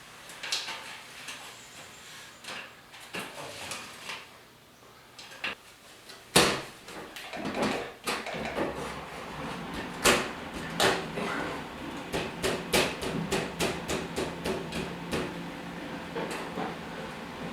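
Knocks and clicks of hands-on installation work: two loud sharp knocks about six and ten seconds in, then a quick run of clicks. A low steady hum comes in about eight seconds in.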